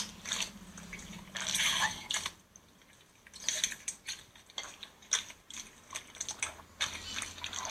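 Slime being squeezed and poked: a run of sticky, wet clicks and crackles, with a longer crackling squish about a second and a half in.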